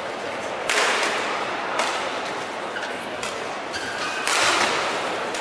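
Badminton rackets striking a shuttlecock in a doubles rally: a loud jump-smash hit about a second in and another loud hit past four seconds, each ringing on briefly in the hall, with lighter strikes between.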